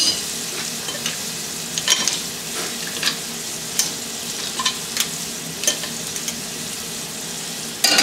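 Metal tongs clinking now and then against a steel pan and bowl as cooked mussels, clams and shrimp are lifted out of the broth, over a steady hiss from the lit gas range.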